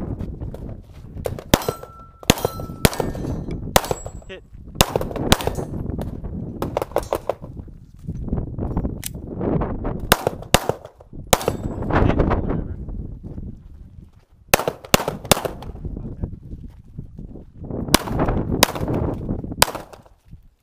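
About twenty 9mm pistol shots fired in irregular strings, some followed by the ring of AR500 steel plates being hit. A low rumble swells and fades between the strings.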